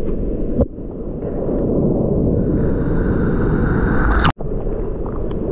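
Breaking waves and churning whitewater rumbling close to a camera at water level in the surf. The sound cuts out for an instant a little past four seconds.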